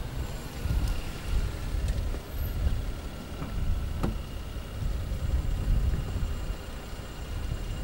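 Low, uneven rumble of street and car noise around a taxi stopped at the kerb. A sharp click about four seconds in comes as its rear door is unlatched and swung open.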